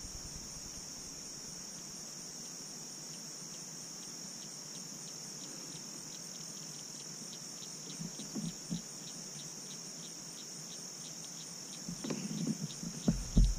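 Insect chorus: a steady, high-pitched buzz, with a faint ticking call repeating about three times a second through the middle. A few low knocks come near the end.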